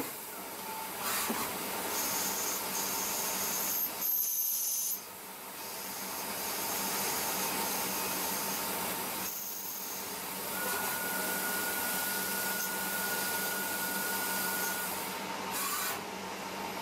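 CNC lathe running while it machines a threaded bushing: a steady hissing machine noise that breaks off and resumes abruptly several times, with a thin high whine for a few seconds in the middle.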